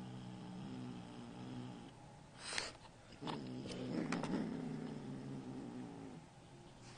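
Kitten growling low and steadily in two long stretches, with short sharp noises between them. The growl is the sound of a kitten guarding money it refuses to give back.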